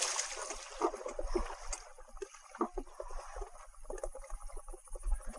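Water rushing and splashing off the paddle wheels of a pedal-powered amphibious recumbent as it leaves the lake, fading over the first second or two. Then scattered knocks and clicks from its frame and paddled wheels rolling up a concrete ramp, with a low wind rumble on the microphone.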